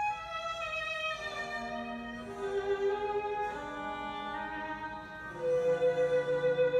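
Slow instrumental background music of sustained melodic notes that change about once a second, with a long held note and a lower supporting note coming in near the end.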